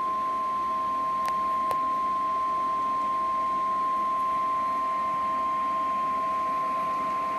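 NOAA Weather Radio warning alarm tone: one steady, high-pitched single tone, the signal that a National Weather Service warning is about to be read. Two faint clicks come about a second and a half in.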